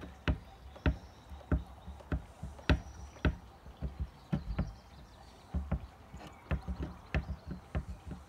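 Irregular sharp clicks and taps, a few a second, from the hot foot tip of a plastic welding iron being worked back and forth over a polyethylene lid to smooth a weld, over a low steady hum.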